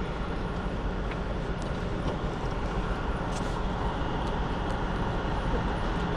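Steady background noise of road traffic, with a few faint light ticks.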